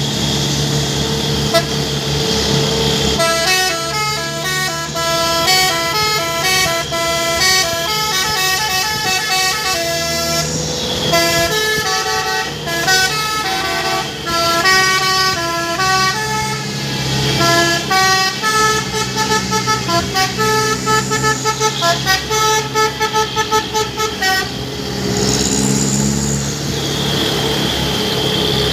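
Truck telolet horn, a set of multi-tone air horns, playing a fast tune of stepped notes over the truck's running engine. The tune starts about three seconds in, its notes come in quick succession toward the end, and it stops a few seconds before the end, leaving the engine.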